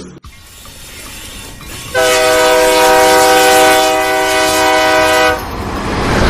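Train horn sounding one long steady chord for about three and a half seconds, starting about two seconds in. A rumbling train noise builds up before it and swells again after it stops.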